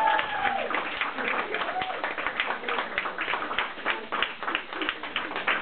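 Small audience applauding, a dense, uneven patter of hand claps.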